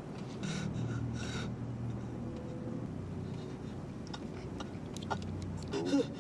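A man breathing heavily: two sharp, noisy breaths about a second in, over a low steady hum. A few clicks and a brief high vocal sound with a falling pitch come near the end.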